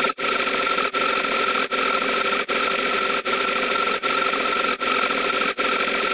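A loud, harsh, noisy sound effect repeating over and over, with a very brief break roughly every 0.8 seconds.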